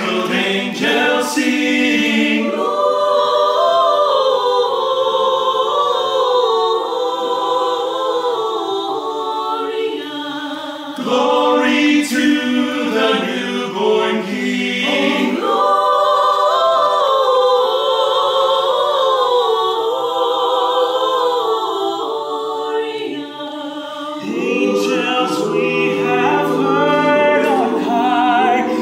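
Mixed men's and women's a cappella choir of carolers singing a holiday song in close harmony, with brief breaks between phrases about eleven and twenty-three seconds in.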